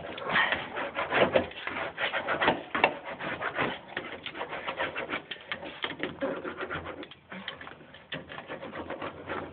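Small hand roller worked back and forth over butyl sound-deadening mat (Damplifier Pro), pressing it down onto the Jeep's floor: a dense run of short rubbing strokes.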